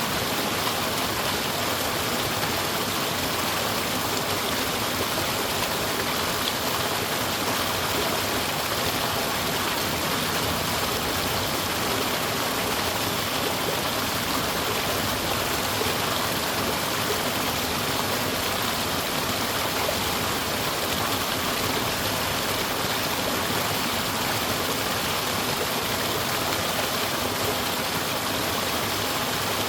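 Mountain stream flowing over rocks: a steady, unbroken rush and babble of water.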